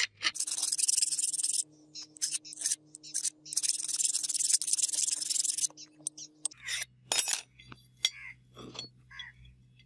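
Rusty steel parts of an antique pipe cutter being worked apart by hand. There are two long stretches of metal scraping, then a run of light metal clicks and clinks.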